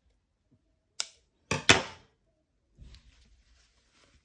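Scissors snipping through sewing thread: a short click about a second in, then two sharp clacks in quick succession, the loudest sounds, followed by faint rustling of the fabric.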